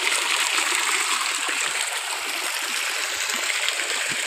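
Mountain spring water falling in a steady jet into a shallow rocky pool, splashing and running continuously.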